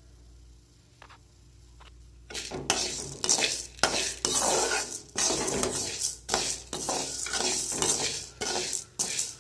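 A flat slotted steel spatula scraping and stirring toor dal (split pigeon peas) around a stainless steel kadai as the dal roasts, the lentils rattling against the metal. Nearly quiet for the first two seconds apart from a couple of faint clicks, then continuous, irregular scraping strokes.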